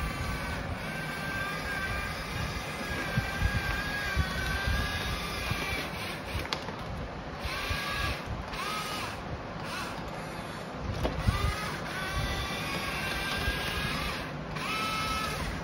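Geared electric track motors of a radio-controlled toy excavator whining as it crawls, stopping and starting several times, with a short rise in pitch at each restart.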